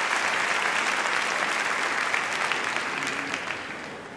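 Audience applauding, the clapping fading away over the last second or so.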